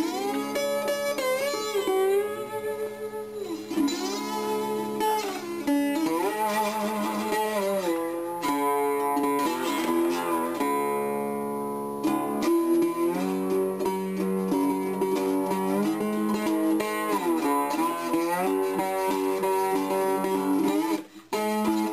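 Background music: a guitar-led track whose notes bend and slide, with a brief drop in level near the end.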